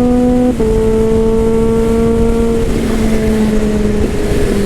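Kawasaki Z H2's supercharged inline-four, fitted with an Orion aftermarket exhaust, running hard at speed with a rush of wind. Its note drops in three small steps, about half a second, just under three seconds and about four seconds in, as the quick shifter takes upshifts.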